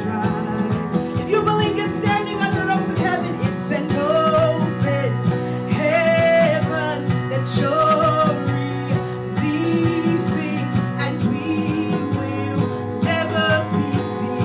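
A woman singing a gospel worship song through a microphone, with live band accompaniment led by a keyboard.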